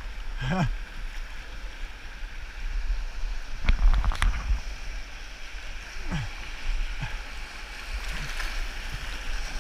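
River whitewater rushing and splashing around the bow of a Bellyak prone kayak, heard from a camera mounted low on the boat close to the water, with a steady low rumble. A short burst of sharper splashing comes about four seconds in.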